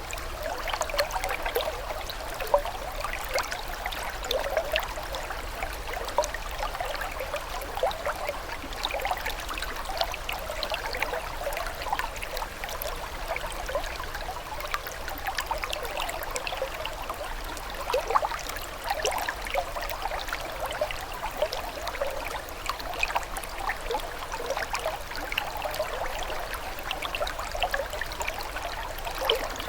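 Running water trickling steadily, with a constant dense patter of small splashes and gurgles and no let-up.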